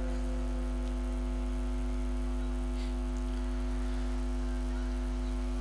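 Steady electrical hum and buzz with a layer of hiss from a public-address sound system, its microphone live and no one speaking into it.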